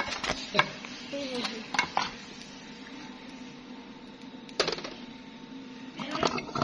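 Metal ladle scraping and clinking against a steel pot and platter as cooked rice is served out: scattered clinks, with a cluster of them near the end.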